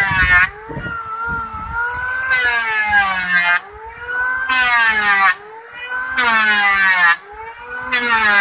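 Corded electric hand planer planing a wooden plank: a high motor whine that sags in pitch under load, with a loud rush of cutting shavings on each pass, about every one and a half to two seconds.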